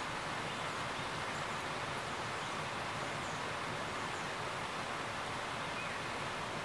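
Steady hiss of rain falling, with some wind, with no distinct events.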